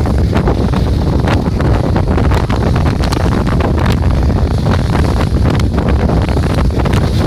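Loud, steady wind buffeting the microphone, with rough sea surf washing and breaking against a sea wall under it.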